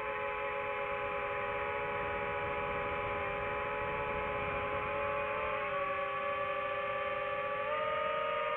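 FPV quadcopter's brushless motors whining steadily, the pitch sagging a little for a couple of seconds and then stepping back up near the end as the throttle changes.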